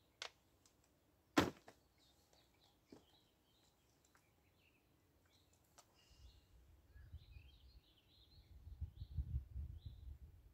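Small birds chirping and twittering in the background. Two sharp clicks come near the start, the second about a second and a half in being the loudest sound. A low rumble grows from about halfway through.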